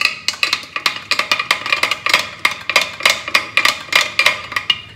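Spoon clinking rapidly and unevenly against the inside of a glass jug, several clinks a second, as shakkar is stirred into water to dissolve it.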